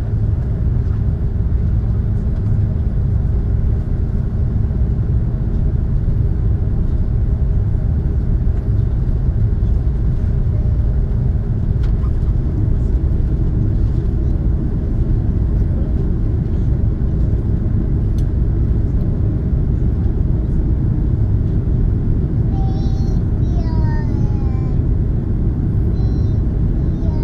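Steady low rumble inside the cabin of an Airbus A330 airliner as it taxis, with the sound of the engines and the rolling aircraft running unbroken. Faint voices come in near the end.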